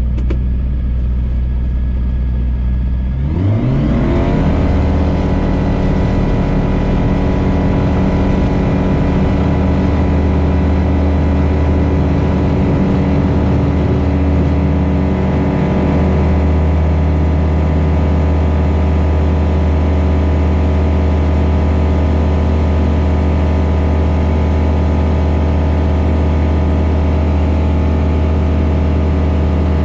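Pipistrel Virus light aircraft's Rotax 912 flat-four engine and propeller, heard inside the cockpit. It runs at low power, then about three and a half seconds in the note rises quickly as full take-off power comes on, and holds steady through the take-off roll and climb-out.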